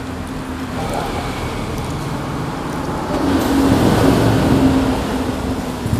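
Road traffic: a steady rumble of passing vehicles, with one engine swelling louder from about three seconds in and fading near the end.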